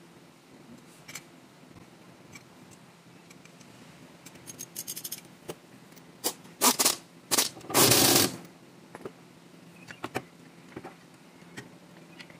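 Clicks and clatter of hand tools and metal parts being handled under a vehicle: scattered single clicks, a quick run of ticks about halfway through, then a few loud clattering knocks, the last one longest.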